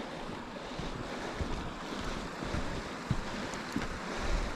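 The River Lyd rushing steadily, with a few faint low knocks.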